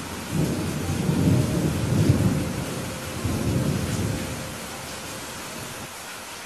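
Thunder rumbling over steady heavy rain: the rumble swells about half a second in, peaks twice, and dies away after about four seconds, leaving the hiss of the rain.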